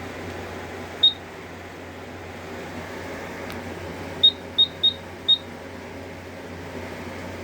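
Silent Knight 5820XL fire alarm control panel keypad beeping as its buttons are pressed while navigating the menu: one short high beep about a second in, then four more in quick succession a few seconds later. A steady low hum runs underneath.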